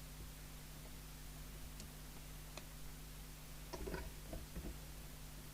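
Faint clicks and a few light knocks from the controls of a CB radio base station being set, over a steady low hum. Two small clicks come about two seconds in, and a short cluster of knocks comes near four seconds.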